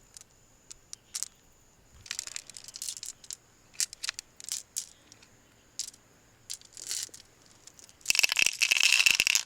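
Freshwater mussel shells being handled and worked open by hand: scattered clicks, crinkles and scrapes, then a louder rough scraping stretch about eight seconds in.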